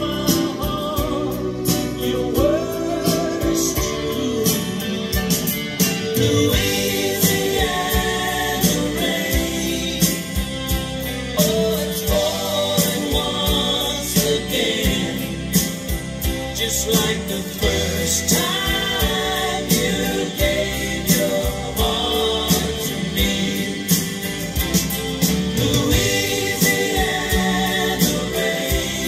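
Recorded music with singing and a steady beat, played from a vinyl record through Allison Four bookshelf speakers driven by a Monoprice tube amplifier.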